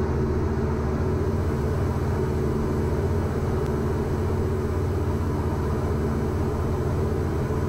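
Steady drone of a Diamond DA40's 180 hp Lycoming IO-360 four-cylinder engine and propeller in flight, heard inside the cabin.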